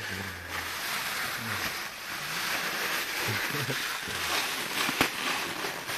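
Noisy, shiny green wrapping paper being torn and crumpled by hand as a present is unwrapped: a continuous crackling rustle, with one sharp snap about five seconds in.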